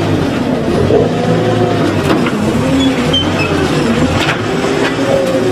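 Compact wheel loader's engine running with a steady low hum, its pitch rising and falling as the shear-grab bucket is worked.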